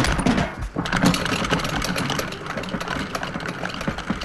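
Machinery running with a dense, rapid metallic clatter as missiles are loaded and readied on their launchers.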